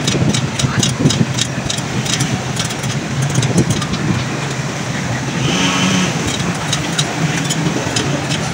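Street traffic with a steady engine hum, over light metallic clicks of a spoked wheel being worked by hand on a truing stand; the clicks come thickest in the first two seconds. A brief higher tone sounds about halfway through.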